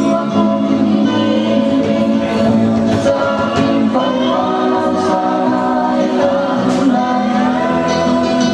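A song with singing, loud and unbroken.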